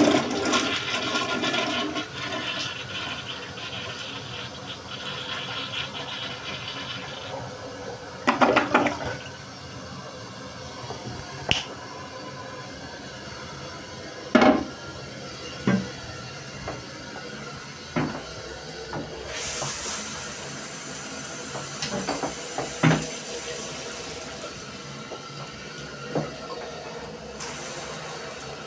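Delta toilet flushing: a loud rush of water that starts suddenly and lasts about seven seconds, followed by the tank refilling with a steady hiss and a few sharp knocks along the way. Near the end, shower water is spraying.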